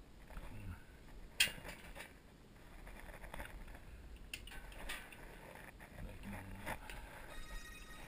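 Faint clicks and knocks from handling a metal furnace smoke pipe section, with one sharp click about a second and a half in and a few softer ones later.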